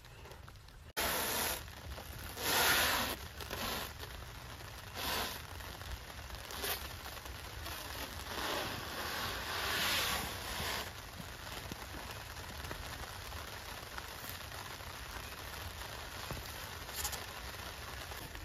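Clear plastic stretch wrap pulled off its roll and wound over branch poles, crackling and rustling, with several louder pulls.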